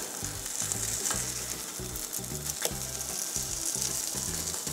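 Food frying in a pan, a steady sizzle, with a couple of faint clicks. Faint background music with a bass line runs underneath.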